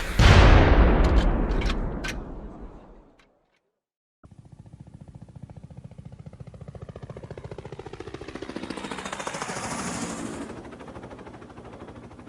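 Battle sound effect: a loud explosion that dies away over about three seconds, with a few sharp cracks in its tail. After a second's silence, a fast, even rattle of rapid pulses starts. It swells to a peak near the end with a falling pitch sweep, then eases off.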